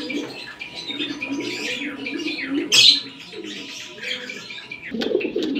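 Domestic pigeons cooing over and over, with one brief sharp noise about three seconds in.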